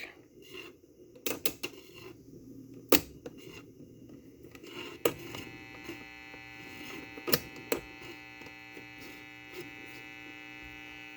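A few sharp clicks and knocks of the record player being handled, then from about six seconds in a steady mains hum from the Artaphone's single-tube 25L6 amplifier and speaker: the amplifier is powered and live.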